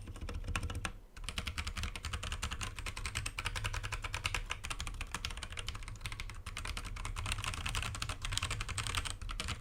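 Typing on an Akko 3068B mechanical keyboard with Akko Jelly Blue tactile switches, factory-lubed stabilizers and a foam dampener under the PCB: a fast, continuous run of keystroke clicks, with a brief pause about a second in.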